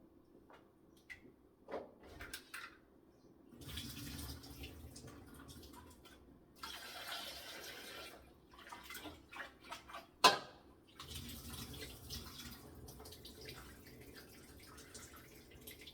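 Water running and splashing in spells, with small knocks from handling; one sharp knock about ten seconds in is the loudest sound.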